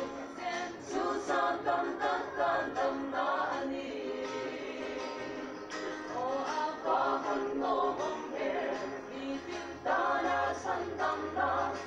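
Mixed choir of women's and men's voices singing together in phrases, accompanied by an acoustic guitar.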